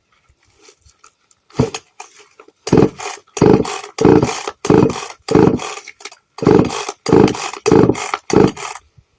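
Chainsaw revved in quick repeated blips: one short blip, then about nine loud bursts roughly one and a half a second, each cutting off sharply.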